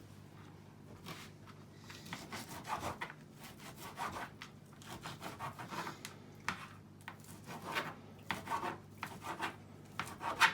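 Irregular rubbing and scraping strokes of food being prepared by hand, bacon being cut and set into a quiche tin.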